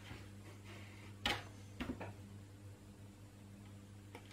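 Faint handling of a coil of thin insulated wire being unwound by hand, with one sharp click about a second in and a couple of softer ticks shortly after, over a low steady hum.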